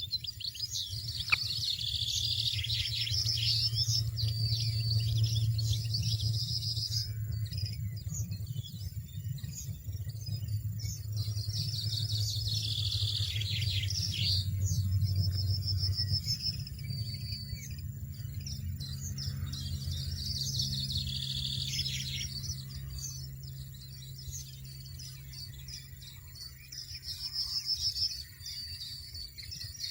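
European goldfinches twittering in several bouts of high, rapid chirps a few seconds long, over a low steady hum.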